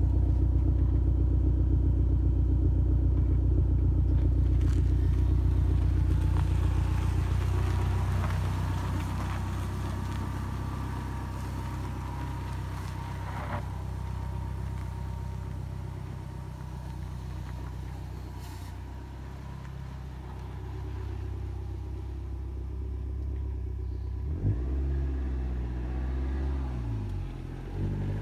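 Dodge Neon's four-cylinder engine running close by, then fading as the car pulls away along a dirt drive. Near the end the engine revs up and down, rising and falling in pitch.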